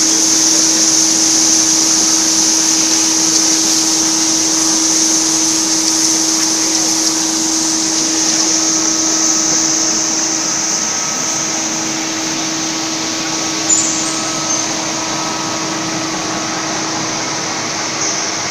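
Steady running noise of a 100 mm skew rolling mill for steel balls: a constant low hum from its drive under a steady high hiss. A brief click about fourteen seconds in.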